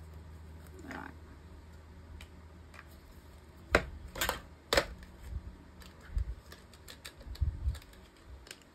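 Paper and small craft tools being handled on a work table: a few sharp taps and clicks, then softer thumps, over a low steady hum.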